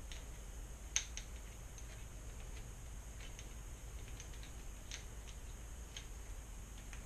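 Irregular small clicks and ticks of hands working bicycle shifter cables and cable housing, with one sharper click about a second in, over a low steady hum.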